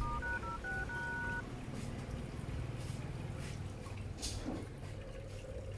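Smartphone dial-pad tones: five quick two-note beeps in about a second and a half, the last one held a little longer, as a code is keyed in on the keypad. The tone pairs match *#06#, the code that brings up the phone's IMEI.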